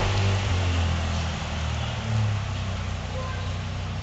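A motor vehicle's engine running as it passes, its low drone fading over the first couple of seconds, over steady background traffic noise.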